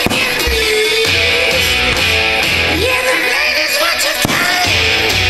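Rock song with a singing voice over a pulsing bass beat. Two sharp cracks cut through it, one right at the start and one about four seconds in, from firework shells bursting.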